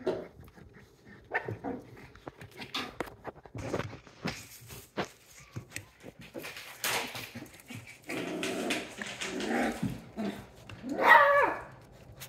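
Australian Shepherd puppy vocalising in short bursts amid scuffling and clicking, with a brief, loud, high yelping bark near the end.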